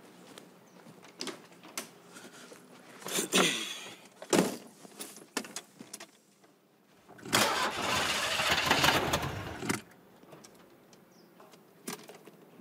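An old car's engine turned over by its starter for about two and a half seconds, without catching. Before it come a few scattered clicks and knocks.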